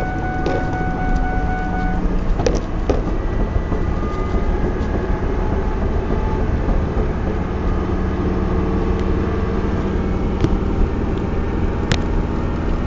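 Ford Mustang on the move, steady road and drivetrain noise with occasional sharp knocks: the thumping and popping from the rear end that comes only off the throttle and follows wheel speed. The owner suspects a U-joint or the differential.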